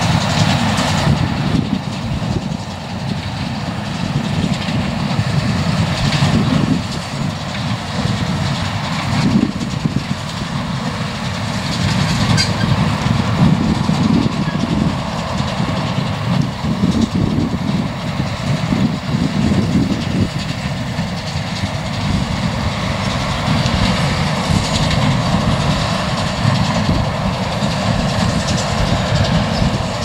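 New Holland T7.210 tractor engine running steadily under load as it drives a Massey Ferguson 186 small square baler, with the baler's mechanism knocking repeatedly as it packs straw.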